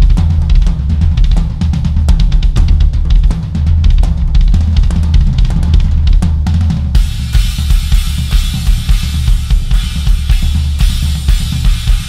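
Drum kit played fast, with dense rapid bass drum and snare strokes. About seven seconds in, cymbals start crashing and keep up a continuous wash over the beat.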